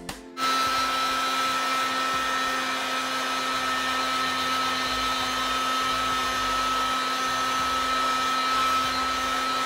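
DeWalt electric heat gun blowing steadily over wet poured resin, heating its surface: a steady rush of air with a thin, steady whine. It cuts in abruptly about half a second in.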